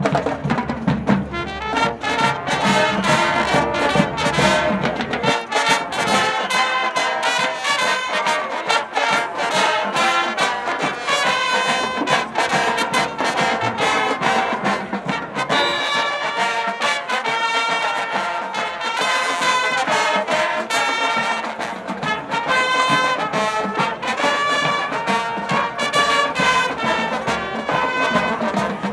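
Marching band playing a brass tune: trumpets, trombones and sousaphones over a steady beat from snare and bass drums.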